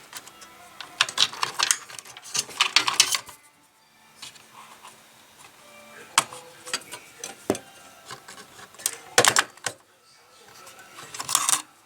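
Irregular bursts of plastic and metal clicking and rattling from hands working a desktop computer's memory modules and their slot latches, in about five clusters with quieter handling noise between.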